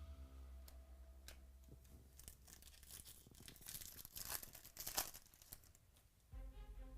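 Faint rustling and brief tearing of trading-card packaging and cards being handled, loudest in a few short rips about four to five seconds in. Soft background music comes back in near the end.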